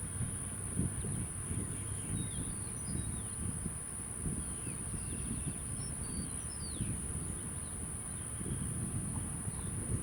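Outdoor ambience with no aircraft engine: wind buffeting the microphone in uneven low rumbles, faint bird chirps, and a steady high-pitched insect drone.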